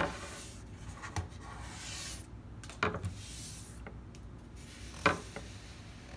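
Toy box packaging being gathered up and cleared away by hand: rustling and scraping, with a sharp knock at the start and a few more short knocks about one, three and five seconds in.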